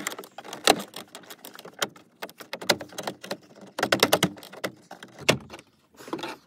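Interior door panel of a 1998 Chevy truck being handled and fitted back onto the door: irregular clicks, knocks and rattles of plastic and small metal parts, in quick clusters.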